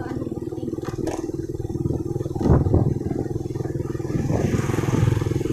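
Small motorcycle engine running steadily with a fast, even pulse, and a brief knock about halfway through.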